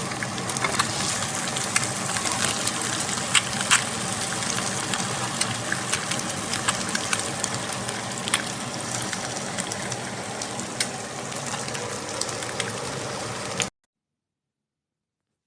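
Food sizzling in a hot frying pan: a steady hiss with scattered sharp pops of spattering fat, cutting off suddenly near the end.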